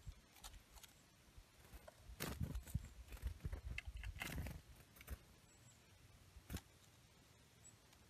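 Female hairy woodpecker working on a bark log at a seed feeder: faint, irregular taps, clicks and scratches of bill and claws on wood, busiest between about two and five seconds in, with one sharper knock later.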